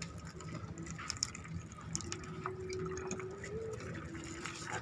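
Water splashing and dripping, with scattered light clicks and knocks.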